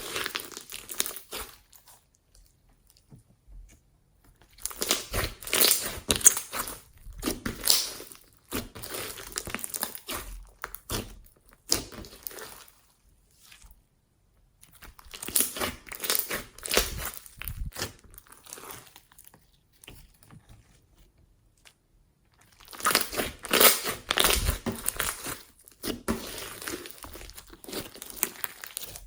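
Slime being squished and kneaded by hand, crackling and popping in four bouts with short quiet pauses between them.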